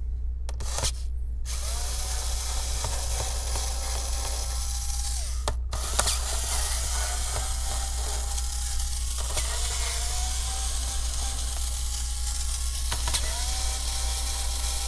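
Small electric screwdriver running in short runs as it backs Phillips screws out of a laptop's bottom cover. Its motor whine rises in pitch each time it starts up on a new screw, several times, with a brief stop partway through.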